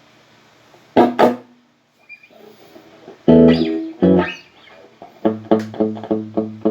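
Guitar played through a Boss RC-1 loop pedal: two chord strums about a second in, then a few single notes, then a quick run of repeated notes over a held low note near the end.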